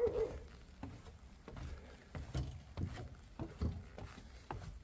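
Footsteps of a hiker walking down wooden steps and onto a dirt trail, about two steps a second. The end of a dog's bark falls right at the start.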